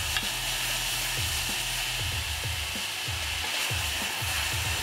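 Browned sliced onions sizzling steadily in a stainless steel saucepan as broth is poured in to deglaze it and stirred with a wooden spoon.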